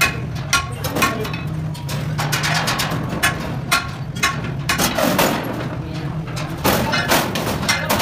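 Irregular metal clanks and knocks as a perforated steel sieve tray is handled and slid into a thresher's steel frame, over a steady low hum.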